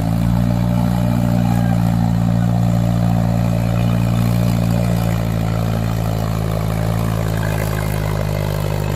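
Mahindra tractor's diesel engine running steadily under load as it hauls a sand-loaded trolley through deep mud.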